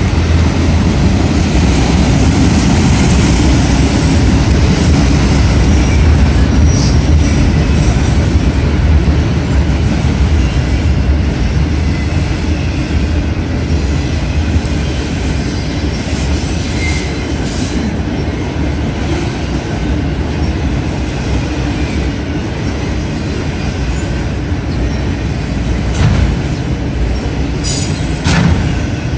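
Autorack freight cars rolling past close by: a steady roll of steel wheels on rail, louder in the first half, with a couple of sharp knocks near the end.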